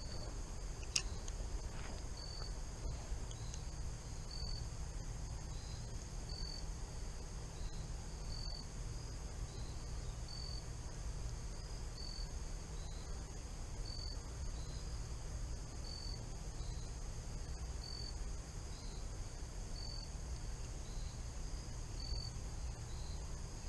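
Insects chirping: a short high chirp about every two seconds, answered in between by a fainter, slightly lower chirp, over a steady high-pitched insect drone and a low steady rumble.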